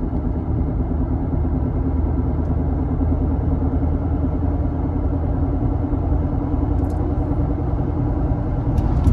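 Bad wheel bearing on a 2008 Lexus droning inside the cabin while the car drives between 40 and 50 mph: a steady low hum over road and tyre rumble that grows a little stronger after a couple of seconds. The drone is the sign of a worn, failing wheel bearing.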